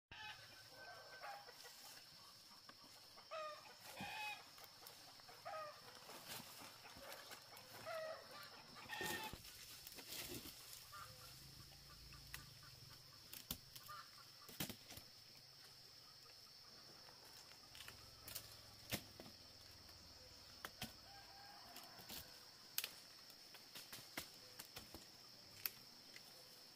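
Chickens clucking faintly, with a run of short calls in the first ten seconds or so and only occasional ones after.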